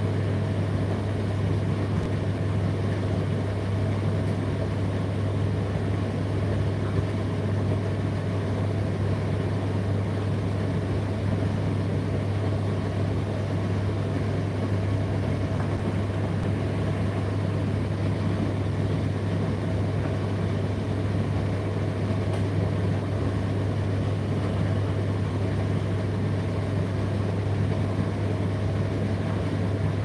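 Indesit IDC8T3 8 kg condenser tumble dryer running: a steady low hum over an even whirr from the turning drum and fan, unchanging throughout.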